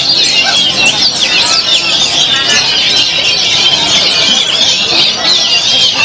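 A dense chorus of caged oriental magpie-robins (kacer) singing over one another: rapid overlapping whistles, slurred notes and chattering trills that never let up.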